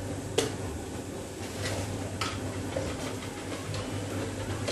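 Water heating in a steel wok on the burner, coming up toward the boil: a steady rushing with a low hum, and a few light ticks and pops.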